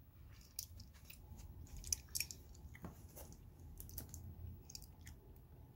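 Hands working at the top of a cardboard product box: irregular crackles, scrapes and clicks of cardboard flaps and packaging being handled, with a sharper click about two seconds in.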